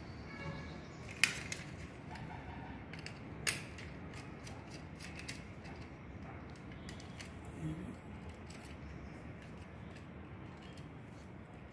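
Small clicks, creaks and rustles of a plastic modular switch plate and insulated wire being handled as the phase wire is fitted into a terminal, with two sharper clicks about a second in and again about three and a half seconds in.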